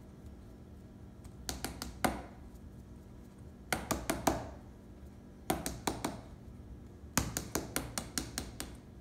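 A small spice jar of paprika being shaken over a stainless steel bowl: four bursts of quick, sharp clicking shakes with short pauses between them.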